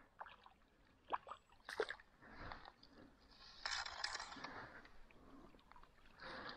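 Hooked fish splashing and thrashing at the water's surface as it is played in, in faint intermittent splashes, the longest bout in the middle, with a few short clicks about a second in.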